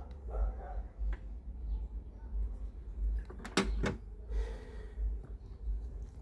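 Handling knocks over a low steady hum: a few faint clicks, then a sharp double knock about three and a half seconds in, followed by a brief hiss.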